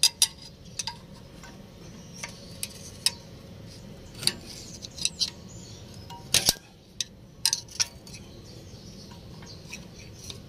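A steel screwdriver clinking and scraping against a brake caliper's steel retaining spring clip as the clip is pried off. Irregular sharp metal clicks with brief ringing, the loudest pair about six and a half seconds in, fewer and fainter near the end.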